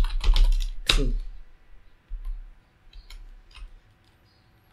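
Computer keyboard keystrokes: a quick run of typing in the first second, then a few scattered single clicks.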